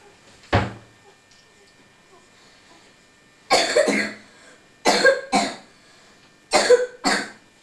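A person coughing: one cough about half a second in, then a run of coughs from about three and a half seconds on, several coming in pairs.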